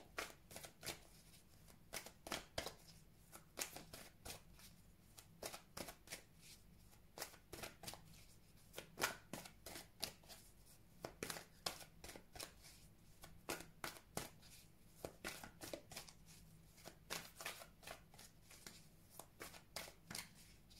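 A tarot card deck being shuffled by hand: a long run of soft, irregular clicks and flicks of the cards, a few louder than the rest.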